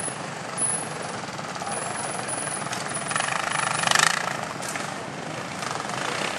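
Trials sidecar outfit's engine running under throttle as it climbs, with a burst of revs about three to four seconds in.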